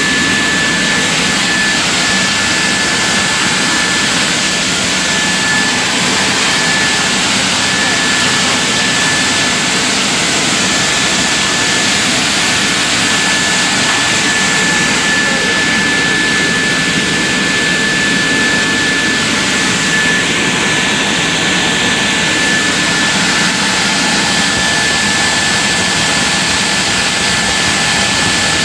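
Plastic pulverizer running while grinding plastic to powder: a loud, steady mechanical rushing noise with a constant high whine.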